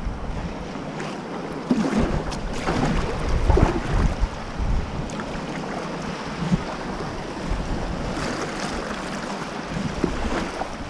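Sea water washing and splashing around rocks, with wind buffeting the microphone in a steady low rumble.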